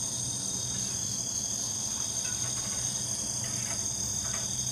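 Steady night chorus of crickets and other insects, a shrill high drone over a faint low hum. A few faint short sounds come through from about two seconds in, which the listeners take for the sound of someone cooking.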